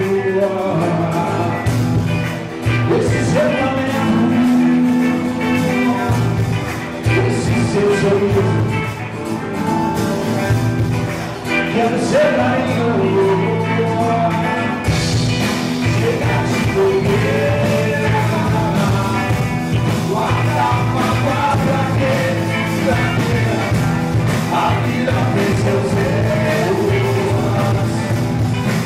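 Live rock band playing with a lead singer: drum kit, electric and acoustic guitars, bass and a tall hand drum.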